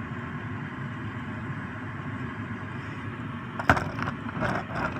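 Steady background hum, then a sharp click about three and a half seconds in, followed by a run of small irregular clicks and rattles of hard little objects being handled.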